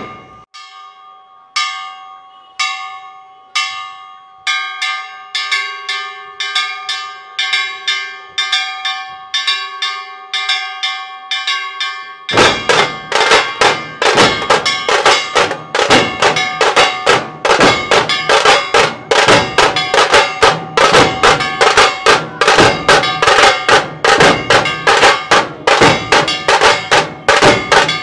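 Percussion music: ringing metallic strikes over a held tone, at first about one a second and gradually quickening. About twelve seconds in, a fast, dense drum beat takes over and stays loud.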